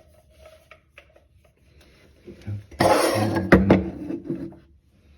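P-trap pipe parts being handled and fitted together: light clicks, then a loud rustling clatter about three seconds in with a sharp knock in the middle of it.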